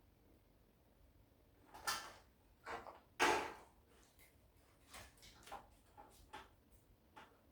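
Plastic model-kit parts being handled and fitted together: a few short scrapes, the loudest about three seconds in, followed by a run of lighter clicks.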